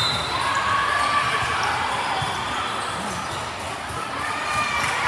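Indoor volleyball play in a gym: the ball being struck and bouncing on the court amid a steady hubbub of players' and spectators' voices.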